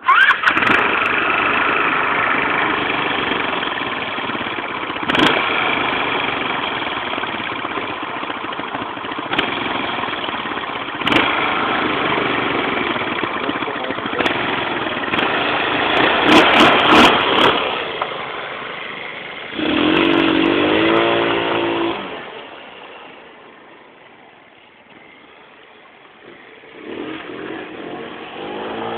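Jonway 150cc scooter's GY6 single-cylinder four-stroke engine running and accelerating, stock. It runs loud for most of the stretch, then gives a rising rev about two-thirds of the way in. It drops quieter before building up again near the end.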